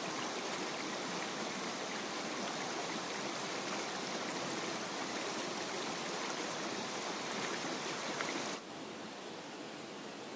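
Steady rush of running water, like a stream, which drops to a quieter hiss about eight and a half seconds in.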